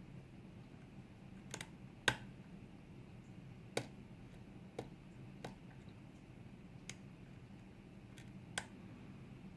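Scattered sharp clicks, about eight of them at uneven intervals, from a lock pick and tension wrench working the pins of a Sargent LFIC interchangeable core as it is picked toward the control shear line. A faint low hum sits underneath.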